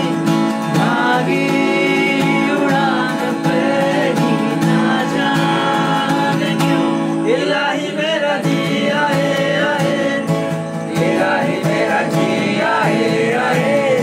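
Acoustic guitar strummed with a man's voice singing a melody over it; the singing grows stronger about halfway through.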